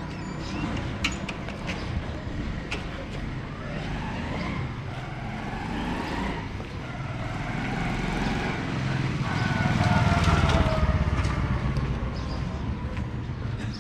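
Street traffic with motor vehicles passing, the loudest one going by about ten seconds in with its engine note sliding in pitch. Scattered clicks and knocks sound over a steady background rumble.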